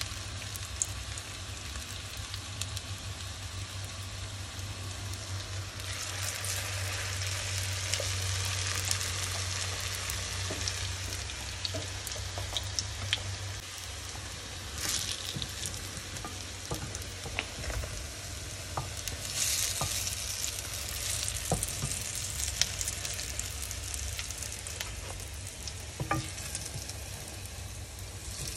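A steady sizzling hiss with scattered sharp clicks and a low hum underneath. The hiss swells twice, about a third of the way in and again past the middle.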